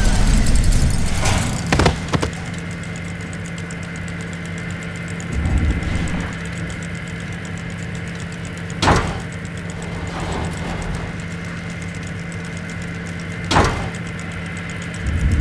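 An engine running steadily at idle, a constant low hum, with three sharp clicks spread through it.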